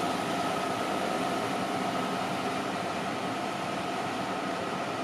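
Hardinge HC chucker turret lathe running with its spindle turning forward in the high speed range: a steady whir with faint steady tones and no knocking, running smoothly.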